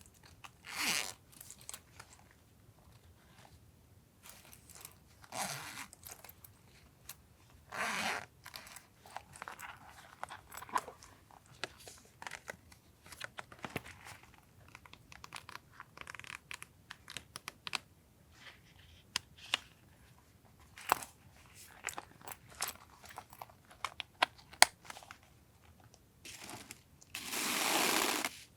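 Items being unpacked and handled on a desk: rustling and crinkling of wrapping, with scattered light taps and clicks, and a louder, longer rustle near the end.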